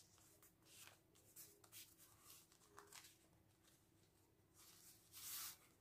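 Faint rustle and swish of a sheet of paper being folded and creased flat by hand: several soft strokes, the loudest near the end.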